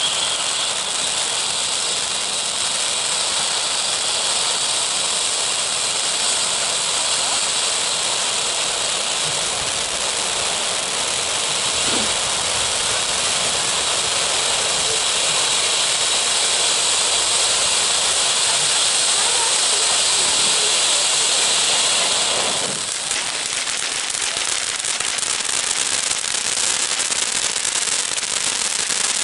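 Firework volcano (ground fountain) burning with a loud, steady hiss of spraying sparks. About three-quarters of the way through, the sound changes to a dense crackling.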